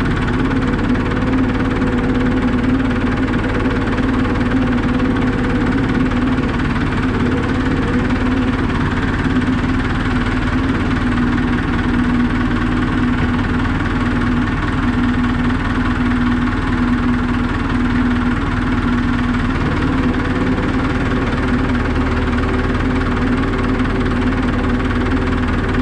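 Tractor engine running at a steady speed, an even, unbroken drone with a strong hum.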